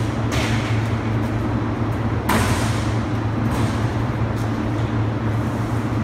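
Steady low machine hum, with a few brief scraping sounds from sheet-metal air-conditioner cabinet panels being handled, the loudest a little past a third of the way in.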